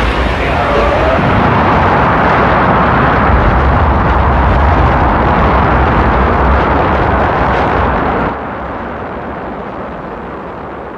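Rocket engines firing at liftoff: a loud, steady noise, heaviest in the low end. About eight seconds in it drops suddenly to a quieter, more distant sound of the same launch.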